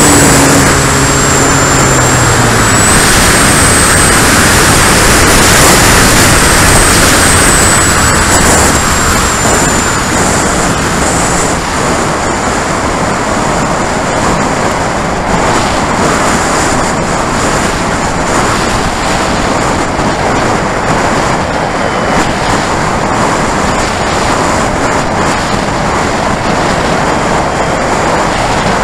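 Onboard audio from an RC sport plane in flight. The engine's pitched drone drops away within the first couple of seconds and a thin high whine fades out about ten seconds in. What remains is a steady, loud rush of airflow and vibration noise on the camera.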